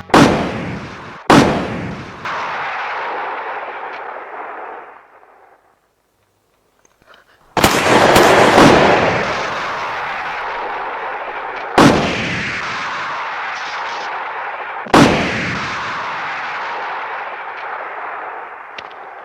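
Gunshot sound effects, each followed by a long echoing tail. Two shots come about a second apart, then after a short silence a quick cluster of shots, then two more single shots about three seconds apart.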